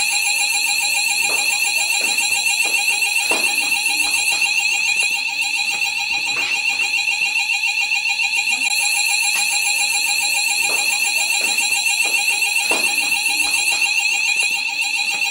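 Fire alarm sounding continuously: a shrill electronic tone that pulses rapidly and evenly.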